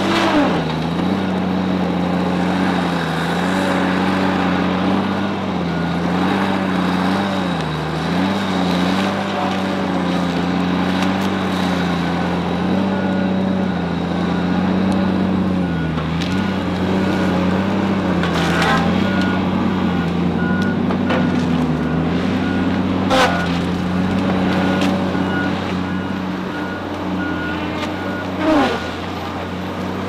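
Tigercat L870C feller buncher's diesel engine and disc saw running steadily, the pitch dipping briefly every few seconds as the machine takes load. A beeping alarm starts about halfway through, and there are two sharp cracks in the second half.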